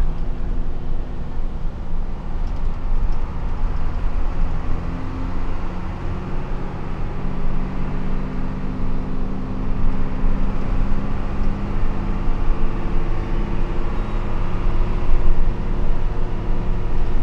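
Intercity bus at highway speed: steady engine drone and road noise, heard from on board.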